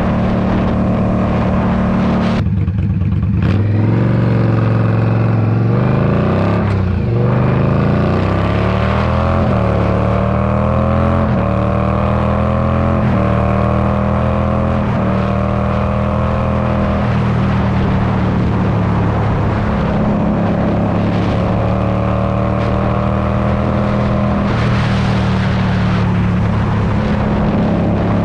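Straight-piped Indian Scout Bobber V-twin under hard acceleration. After a few seconds at a steady pitch the throttle is briefly closed, then the engine pulls hard, its pitch climbing and dropping back with each of several upshifts. For the last ten seconds or so it holds a steady cruise.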